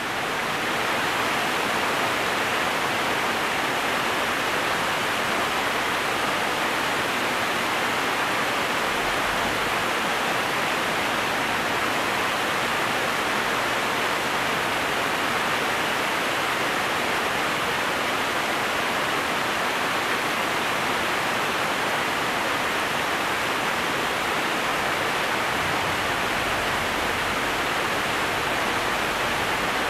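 Steady rush of water in the canal lock, even and unbroken.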